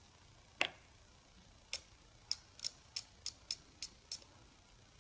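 Light clicks from hand-working the inside of an opened laptop hard drive while its stuck read/write head is being freed: one sharper click about half a second in, then eight small clicks at roughly three a second.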